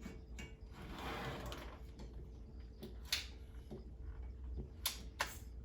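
Washing machine supply hose's threaded coupling nut being spun on by hand, with a soft scraping of the threads and a few light clicks.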